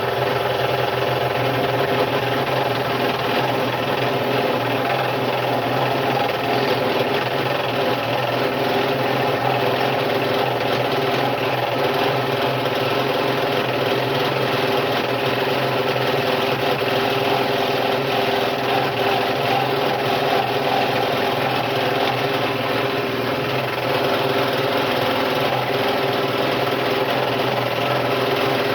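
Scroll saw running steadily, its brand-new blade reciprocating and cutting through wood.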